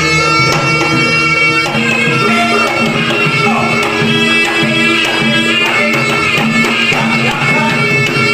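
Jaranan ensemble music: a shrill reed shawm (slompret) plays a held, wavering melody over a steady beat of hand drums and struck percussion.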